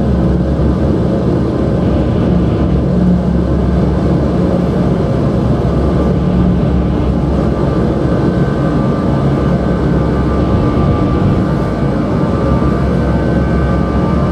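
Drone music: a loud, dense, steady low drone with held tones layered over it, and higher sustained tones swelling in about halfway through.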